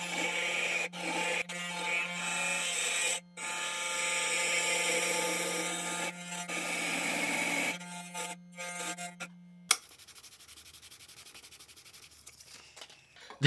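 Table-mounted Makita router cutting a brass plate with a small bit: a high, rasping cutting noise over a steady motor hum, broken by a few short gaps. It stops abruptly about ten seconds in, leaving only faint, even ticking.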